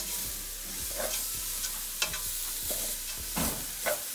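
Chicken and vegetables sizzling in a hot pan while a utensil stirs them, with a sharp scrape against the pan about once a second. The pan is running low on oil.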